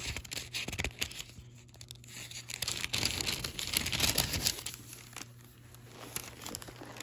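Bible pages being turned by hand: paper rustling and crinkling, loudest about three to four seconds in, then dying away.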